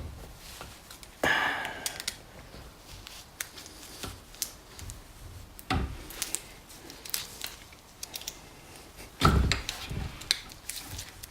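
Scattered metal clicks and scrapes from a drift and lever working against the snap ring inside a BMW R80 airhead fork tube, as the ring is pressed down and pried out of its groove. There is a heavier knock about nine seconds in.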